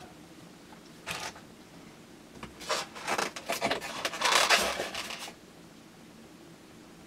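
Packaging being handled and rustled while items are unpacked from a box: a brief rustle about a second in, then a longer run of rustling and scraping in the middle that stops about two seconds before the end.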